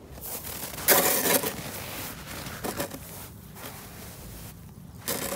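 Crusty snow crunching and scraping in a few short bursts, the loudest about a second in.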